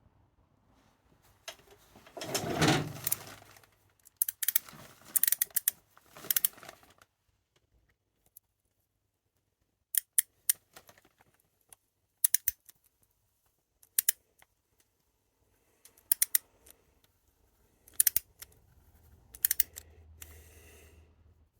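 Hand tools and small metal parts being handled at a workbench: scattered sharp metallic clicks and clinks, singly and in small clusters, with a louder scraping rustle about two seconds in.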